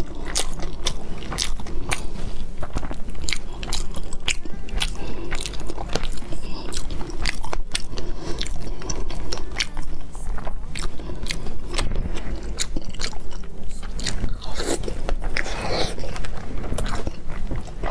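Close-miked chewing of salmon-wrapped sushi, a steady run of small mouth clicks throughout.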